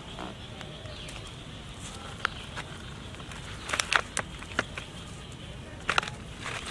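Plastic bag crinkling and crackling as a baby long-tailed macaque paws and pulls at it. The crackles come in a cluster about four seconds in and again about six seconds in, over a steady outdoor background with faint bird calls.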